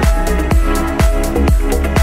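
Background electronic music with a steady beat, about two beats a second, under sustained chords.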